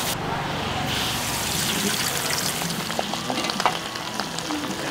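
Food frying in hot oil in a steel wok, a steady sizzle, with a few sharp clicks of the metal spatula against the wok about three seconds in.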